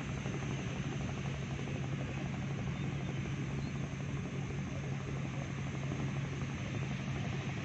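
Boat engine running steadily: an even low drone with a constant hum, over a steady hiss.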